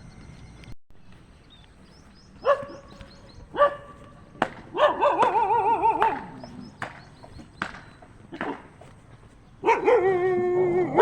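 Dogs barking: two single barks, then a longer spell of wavering barking about five seconds in and another near the end. The dogs are guarding their territory against a stranger coming up their road.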